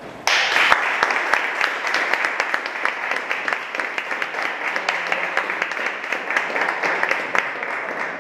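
Audience applauding: dense clapping breaks out suddenly just after the start and carries on steadily.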